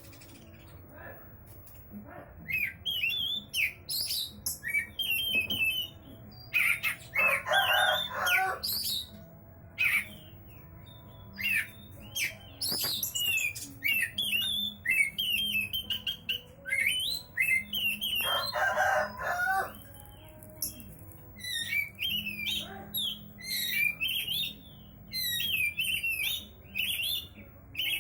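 Oriental magpie-robin (kacer) singing on and on in short, quickly varying whistled phrases. A rooster crows twice, once about a third of the way in and again about two-thirds in.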